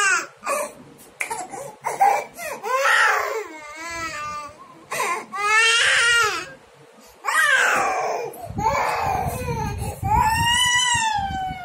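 A toddler crying in a series of drawn-out wails a few seconds apart, each sliding up and down in pitch.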